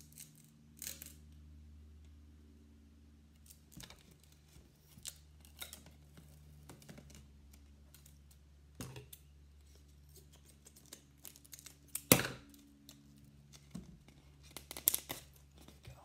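Duct tape being pulled off the roll in short rips and pressed around a cardboard tube, with a louder rip about twelve seconds in. A low steady hum runs underneath.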